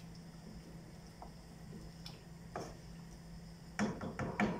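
A wooden spoon stirring a stew in a metal pot, then knocking a few times against the pot near the end, over a steady low hum.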